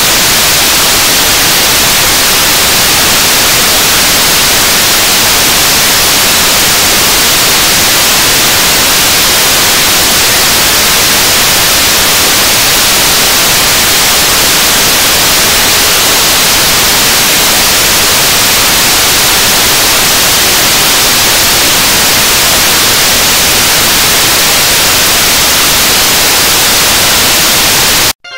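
75-tonne-class kerosene and liquid-oxygen rocket engine firing on a test stand: a loud, steady noise with a strong hiss. It cuts off abruptly near the end.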